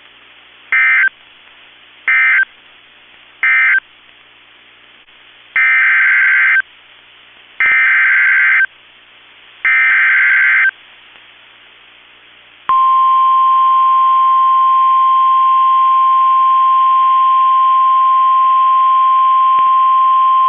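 NOAA Weather Radio SAME alert signalling. First come three short digital end-of-message bursts, then three longer, screechy digital header bursts announcing a new warning. Then the steady 1050 Hz Weather Radio warning alarm tone sounds for about nine seconds.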